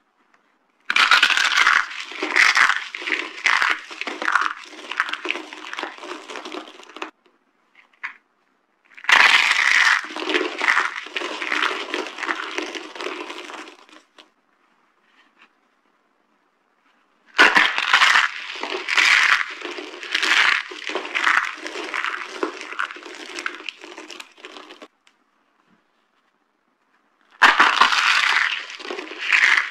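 Dry soap being crushed: four spells of crunching and crackling. Each starts with a loud crack and tapers off over several seconds, with silent pauses between.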